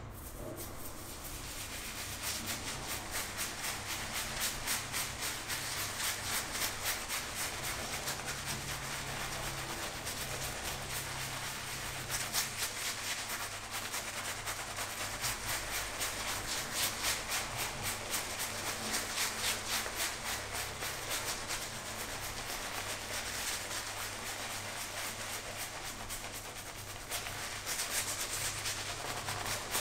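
Shaving brush working lather across a face: a quick, rhythmic swishing and squishing of wet bristles through foam.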